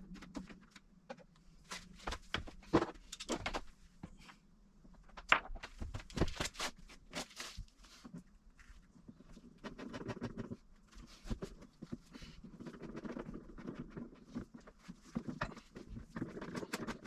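Irregular clicks, taps and knocks, like hands handling tools and parts, with a denser rustling patch over the second half.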